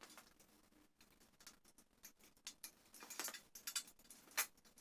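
Faint, irregular clicks, taps and scrapes of hands working on a whiteboard frame, working its top piece loose and handling the cable to thread through it, with a sharper tick near the end.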